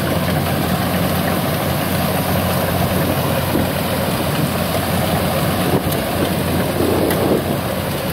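Kubota DC70 combine harvester's diesel engine running steadily under load with a low, even hum while the machine cuts rice.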